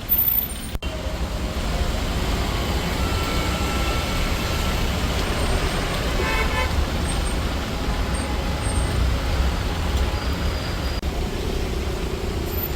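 Road traffic stalled in a jam, with vehicle horns honking in short toots, one clearest about halfway through, over a heavy low rumble.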